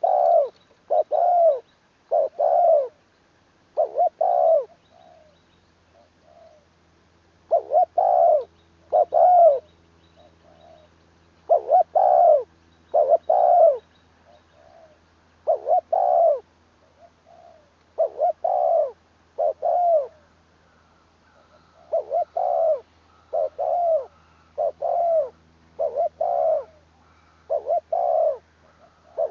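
Spotted dove cooing: phrases of two or three short deep coos repeated every couple of seconds, with fainter coos in the gaps between phrases.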